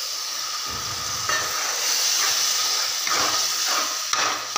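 Water poured into a hot kadai of fried onions and sauces, hissing and sizzling. From about a second in, a steel spatula stirs and scrapes through the sauce in repeated strokes.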